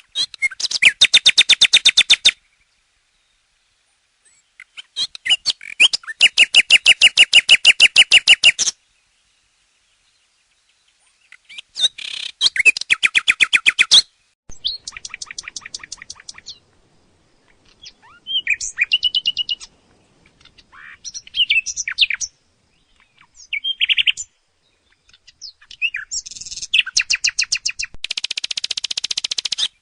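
Common nightingale singing: phrases of fast repeated notes and rattles, some with whistled notes, separated by short pauses.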